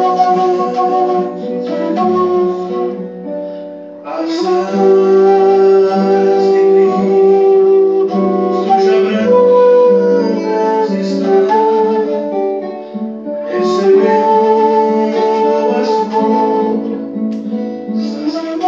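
Bamboo flute playing a hymn melody in long held notes over an accompaniment with guitar. The music thins briefly just before about four seconds in, then fills out again.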